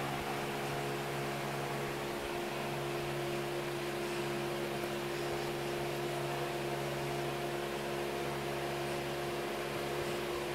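A steady machine hum, several fixed tones over an even hiss, unchanging throughout.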